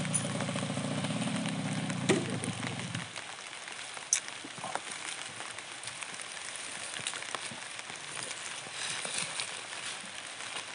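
A wood-hauling gerandong motorcycle's engine idles low and steady, then cuts off about three seconds in. Light drizzle then patters on the leaves, with scattered small ticks.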